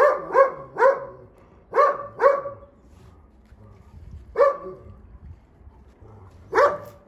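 Rajasthani shepherd dog barking in short, high-pitched barks. It gives a quick run of three, then a pair about two seconds in, then single barks a couple of seconds apart.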